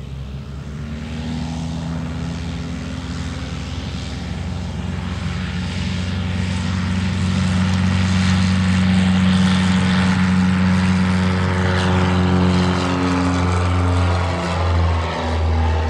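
Zenith CH 750 Cruzer light aircraft's UL Power piston engine and propeller at full takeoff power, growing louder as the plane lifts off and passes, with a slight drop in pitch near the end.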